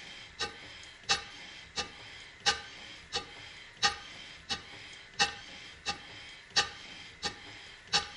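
Stuart 5A model steam engine running slowly, its exhaust chuffing in a steady rhythm of about one and a half beats a second, with slightly stronger and weaker beats alternating. The fairly even beat is the sign of valve timing that has been tuned in.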